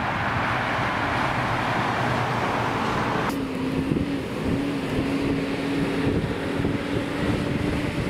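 Outdoor construction-site noise with wind on the microphone. About three seconds in, the rushing noise cuts off suddenly, leaving a steady machine drone, like an engine running nearby.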